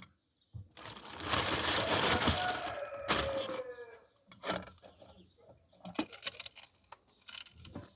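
A loud rushing hiss for about three seconds, with a tone falling in pitch near its end. Then scattered light clinks and knocks of metal pressure-cooker parts being handled.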